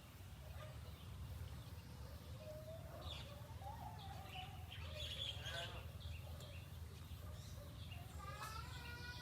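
Faint outdoor ambience: scattered bird chirps and calls over a low steady rumble. A pitched, voice-like call begins near the end.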